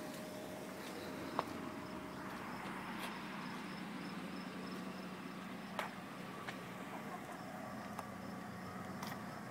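2013 Toyota Corolla S's 1.8-litre VVT-i four-cylinder idling steadily, with insects chirping in an even rhythm and a few light clicks and taps.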